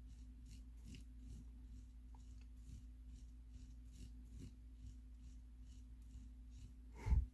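Faint, irregular clicking of the rotary knob on a Zimo MXULFA DCC programmer being turned quickly, a few clicks a second, as it scrolls a load-code value upward. A single dull thump near the end.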